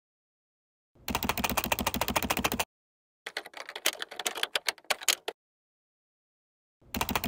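Three bursts of rapid, closely spaced clicking, each lasting one and a half to two seconds, with silence between them; the middle burst is sparser and thinner than the other two.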